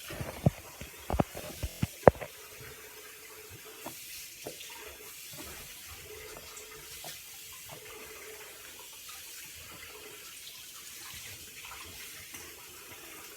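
Homemade jelly-cube slime being squeezed and stretched by hand, making soft wet squelches and small clicks. A few sharper pops come in the first two seconds, then quieter squishing.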